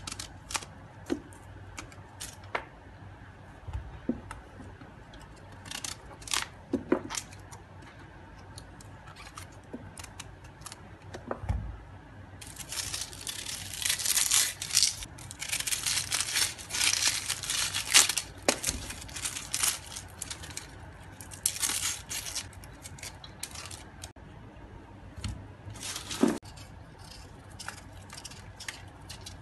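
Hand-peeling vegetables with a small knife over a plastic colander. Scattered small scrapes and clicks as an eggplant's skin is cut away, then, about midway, a long stretch of dry, papery crackling and tearing as the onion's outer skin is stripped off. Near the end come sparse scrapes as a potato is peeled.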